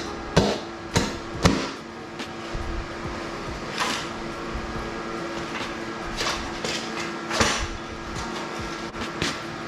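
A series of irregular sharp knocks and clunks, several close together in the first second and a half and scattered ones later, over a steady low hum.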